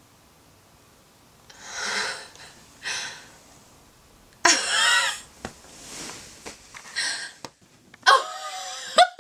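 A young woman's excited breathy gasps, rising to high-pitched squeals of delight about halfway through and again near the end.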